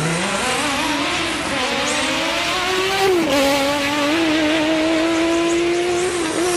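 Simulated F1 engine sound played by an RC car's onboard sound unit: a pitched engine note that climbs for about three seconds, drops suddenly as if changing gear, then holds nearly steady.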